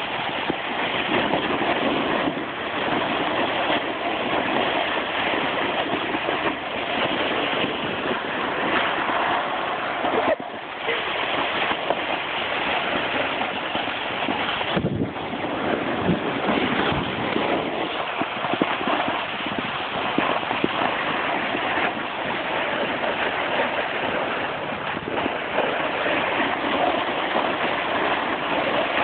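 Wind rushing over a phone's microphone during a fast descent on snow, mixed with the steady scrape of sliding over the snow surface. The noise is even throughout and dips briefly twice, about ten and fifteen seconds in.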